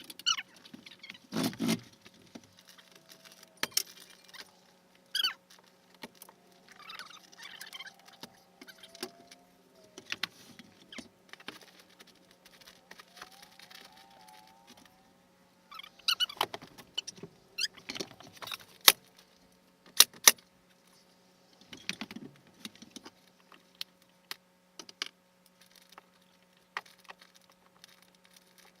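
Scattered sharp clicks and knocks at irregular intervals, the two loudest close together near the middle, over a faint steady hum.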